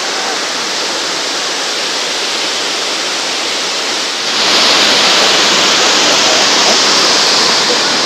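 Tiered waterfall cascading over rock ledges: a steady rush of falling water that jumps louder and hissier about four seconds in.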